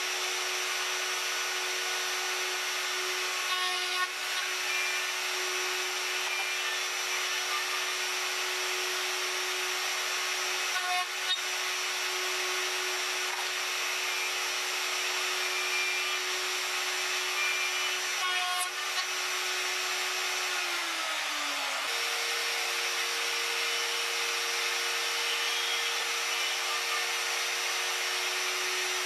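Small router table's router running at speed, its bit cutting box-joint finger slots in a wooden board pushed through a jig. A steady high whine throughout; about twenty seconds in the pitch slides down and a different steady whine takes over.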